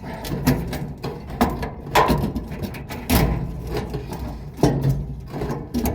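Irregular knocks, clicks and clatter of hands working parts back into a clothes dryer, about half a dozen sharper knocks among them.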